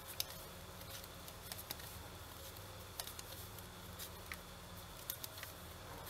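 Knitting needles clicking faintly now and then as stitches are worked with pink yarn, a dozen or so scattered small ticks over a faint steady low hum.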